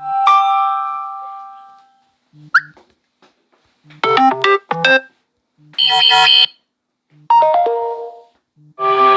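Samsung Galaxy S22 notification sounds previewed one after another from the phone's loudspeaker: about six short chimes and blips with brief gaps between them, each with a short low hum just before it. The last, fuller chime starts near the end.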